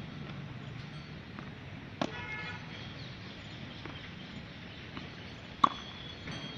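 Tennis ball pocks: a lighter hit about two seconds in, then a loud sharp crack of a racket striking the ball on a backhand near the end.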